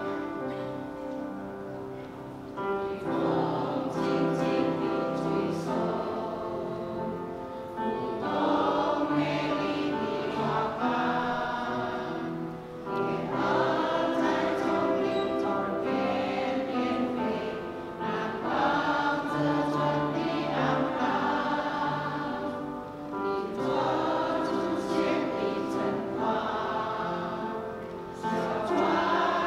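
Mixed church choir of women's and men's voices singing a hymn in phrases of about five seconds, each swelling and easing.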